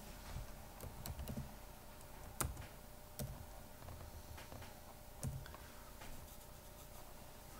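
Typing on a computer keyboard: a few scattered key clicks, a quick run of them about a second in and the sharpest about two and a half seconds in.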